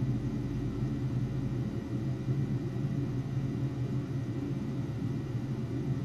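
Steady low machine hum with a few faint constant tones over it, unchanging throughout.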